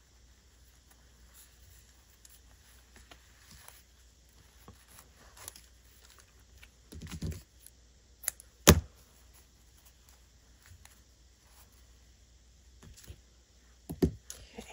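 Handling sounds from tying a silk ribbon bow with scissors: soft rustling and a few sharp clicks, the loudest about nine seconds in and another near the end.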